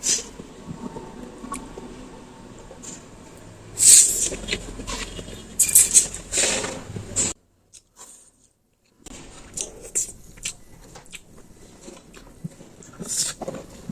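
Close-miked mukbang eating of veg chow mein noodles: wet slurping and chewing, with loud slurps about four and six seconds in. A sound dropout of about a second and a half comes near the middle.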